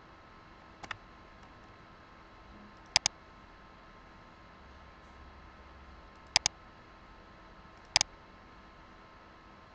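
Computer mouse clicks, four of them a few seconds apart, each a quick double tick of button press and release; the first is fainter. A faint steady hum underneath.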